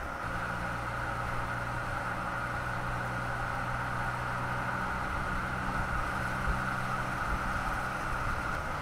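Steady driving noise of vehicles at motorway speed: tyres rolling on asphalt with a low, even hum and no revving.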